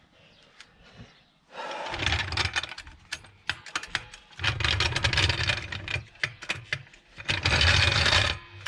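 Trolley jack being worked under the car's rear trailing arm: three loud, rough, rumbling scrapes of about a second and a half each, the second starting about four seconds in and the third about seven seconds in.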